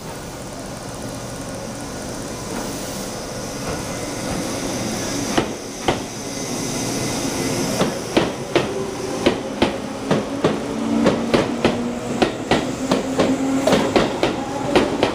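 Tobu Type 634 electric train pulling out of the station. A steady running noise builds up, then the wheels clack over the track joints: a few clicks about five seconds in, then a rapid run of clicks from about eight seconds on as the cars roll past.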